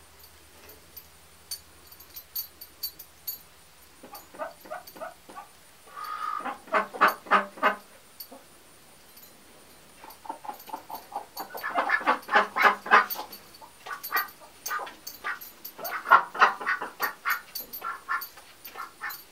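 Chickens clucking in several bouts of quick, repeated notes, loudest in the middle of the run and again near the end.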